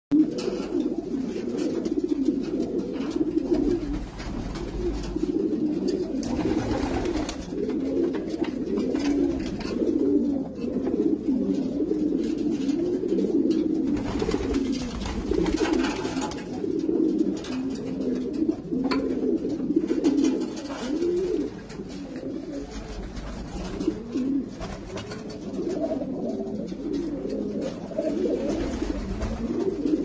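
A flock of racing pigeons cooing, many overlapping low, warbling coos going on continuously.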